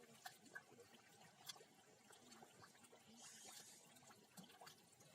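Near silence: only faint scattered clicks and a faint hiss, with no clear source.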